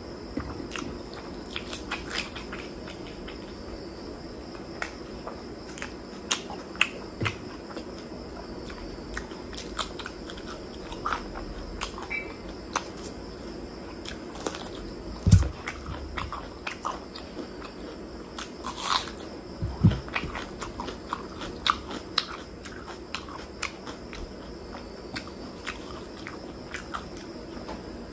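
Close-miked eating: wet chewing, smacking and crunchy bites of chicken liver and gizzard curry with rice eaten by hand, in many short irregular clicks. Two louder thumps come past the middle.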